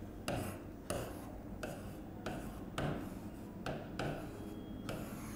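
Marker pen writing on a whiteboard: a string of short, fairly quiet scratchy strokes, one or two a second, as letters are written.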